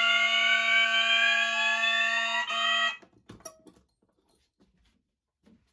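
Fire alarm system sounding: a loud, steady buzzing tone with a slowly rising sweep tone on top. It cuts off abruptly about three seconds in.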